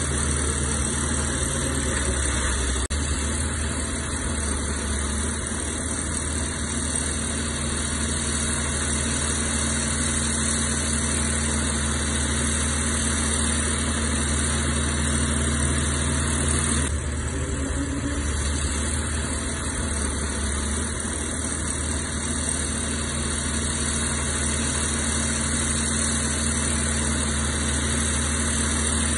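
Heavy earthmoving machine's diesel engine running steadily.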